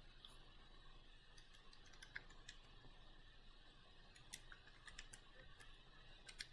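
Near silence broken by a few faint, scattered clicks of keys being tapped.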